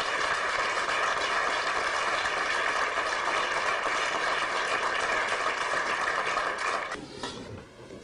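Audience applauding steadily, the clapping dying away about seven seconds in.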